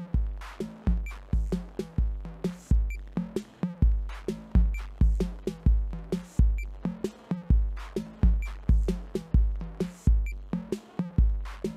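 Live electronic music from a drum machine and synthesizer: a repeating sequenced groove of short, decaying low bass-drum hits and short bass notes, with regularly spaced high clicks on top.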